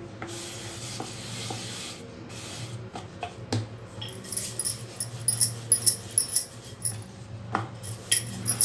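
Hands rubbing and patting flour-dusted dough on a wooden board, then a wooden rolling pin rolling over the stacked dough with light clicks and taps against the board from about halfway through.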